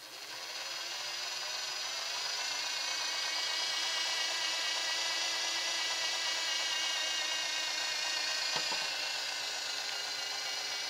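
A Singer 403A sewing machine running with its covers off: its built-in electric motor drives the steel worm gear, hand wheel and shafts with an even, pitched mechanical hum. The hum comes up to speed over the first second or two and eases off slightly near the end.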